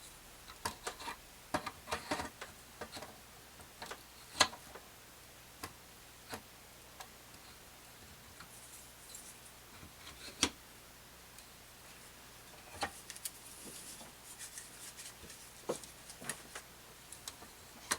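Scattered light clicks and knocks of model kit parts being handled and fitted into a layered plywood base, with two sharper knocks about four and ten seconds in.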